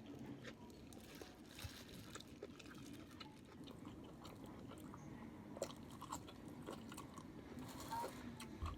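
A person chewing and biting food close to the microphone, mouth sounds with many small scattered clicks.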